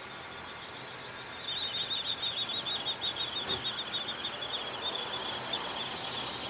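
Downy woodpecker nestlings begging inside the nest cavity: a continuous rapid chatter of short, high squeaks, growing louder about a second and a half in and easing off after a few seconds.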